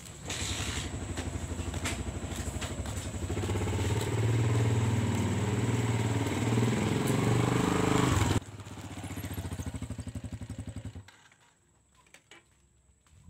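Small motor scooter engine running close by, getting louder as it approaches. It drops abruptly about eight seconds in and dies away about two seconds before the end, leaving a few faint clicks.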